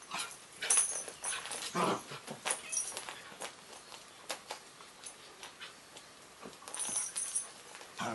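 A young dog play-fighting with a cat: scuffling, with short dog vocal sounds scattered through, the loudest in the first couple of seconds.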